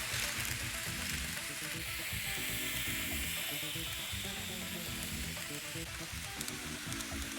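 N-gauge model train running on a layout's track, a steady high hiss from its wheels and small motor, with background music.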